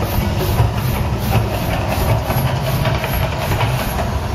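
The Mirage volcano show erupting: a loud, steady, deep rumble with the hiss of its gas fire jets burning across the water.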